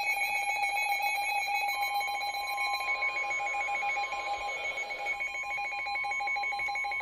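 NOAA Weather Radio alert tone signalling an incoming severe thunderstorm warning: a steady electronic alarm tone made of several pitches held together, cutting off suddenly near the end.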